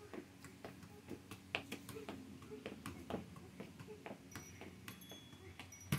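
Soccer ball being juggled, tapping off feet and knees in a steady run of light taps, about two to three a second.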